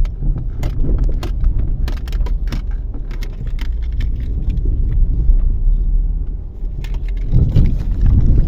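Nissan Almera G15 heard from inside the cabin while driving over rough ground: a steady low road rumble with frequent short knocks and rattles from the body or suspension, the knock the owner is trying to trace. Keys jangle along with it.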